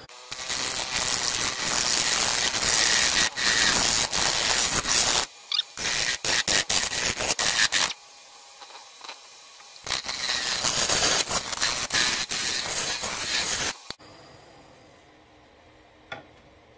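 A square carbide turning tool cutting into a wood blank spinning on a lathe: a loud, harsh scraping in two long bouts, with short choppy cuts between them. It stops about three seconds before the end.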